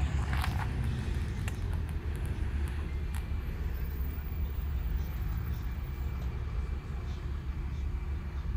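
Steady low rumble of distant road traffic with no voices over it, broken by a few faint clicks and rustles.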